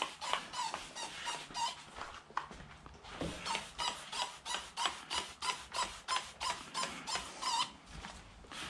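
Hand trigger spray bottle squirting liquid in quick repeated pulls, about three a second, with a short break around two to three seconds in.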